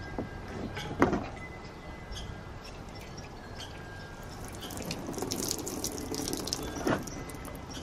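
Water poured over a steel shovel blade, splashing on the metal and dripping off the edge, heaviest about five to six seconds in. A short knock sounds about a second in.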